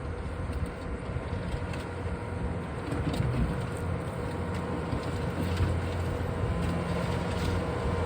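Bobcat skid steer's engine running steadily, slowly growing louder, with a few light knocks and clanks.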